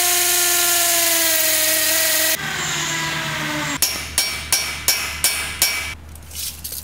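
Cordless drill boring into a concrete floor, its pitch sagging slightly under load, then dropping to a quieter, slowing run. About four seconds in, six sharp hammer strikes, about three a second, drive a steel anchor bolt into the concrete.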